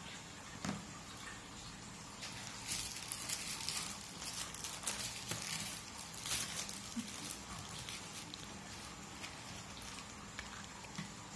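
Rustling and crinkling of plastic-wrapped sheets of cut-out kit parts as they are lifted and stacked, busiest in the middle, with a soft knock of a part being set down about a second in.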